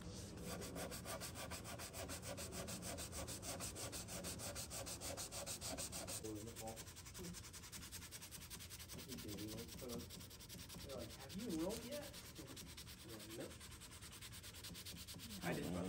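Sandpaper on a small hand sanding block rubbed in quick short strokes over dried wood filler on a wooden cabinet edge, a fast even scratching that thins out after about six seconds. A few faint wavering tones come and go in the second half.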